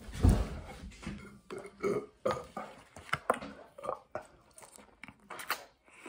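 A man's loud, deep burp about a quarter second in, right after a drink from a bottle, followed by irregular mouth noises of biting into and chewing a chicken sandwich.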